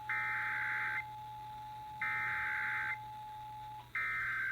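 Emergency Alert System tones off an FM radio broadcast: three bursts of warbling digital data tones, each about a second long and about two seconds apart, the SAME header of the alert. Under them a steady two-tone attention signal sounds and cuts off just before the third burst.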